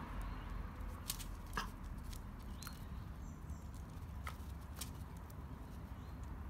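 A few faint, sharp clicks and ticks scattered over a few seconds, from a dachshund's claws on concrete as it steps and shifts its paws, over a low steady outdoor rumble.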